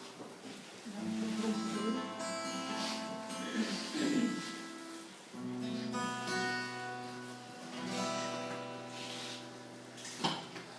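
Acoustic guitar strumming slow chords, changing every second or two, with a sharp click near the end.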